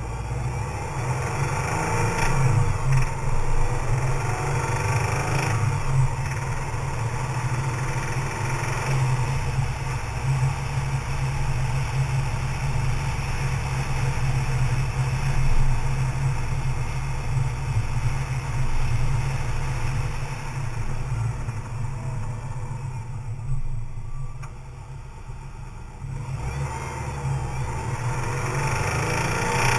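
2004 Subaru Liberty/Legacy's 2.5-litre EJ25 flat-four engine running and being revved, going quieter for a few seconds about three quarters of the way through before picking up again. It carries a knocking noise that the owner cannot place, most prominent when coming off the accelerator above 3,500 rpm.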